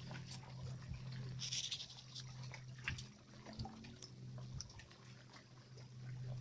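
Small waves lapping and dripping against a floating fishing raft, with scattered small clicks and splashes over a steady low hum.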